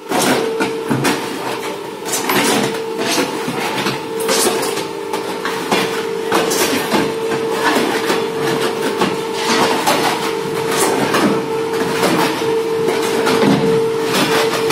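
Fly ash brick plant machinery running: a pan mixer churning fly ash mix and a belt conveyor turning. A steady mid-pitched hum with irregular clattering and knocks.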